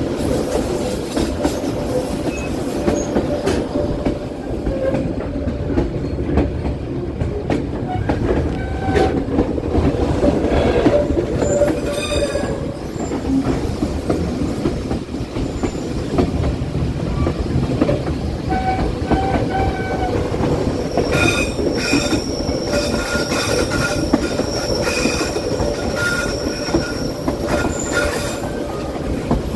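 Passenger train running on the mountain line, a steady heavy rumble of wheels on rails. Its wheels squeal as they grind around tight curves, with held high squeals strongest in the last third.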